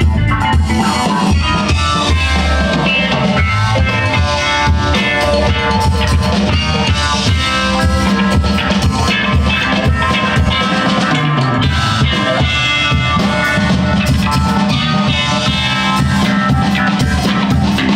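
Live band playing dub-funk: drum kit keeping a steady beat under electric guitar, bass and keyboards.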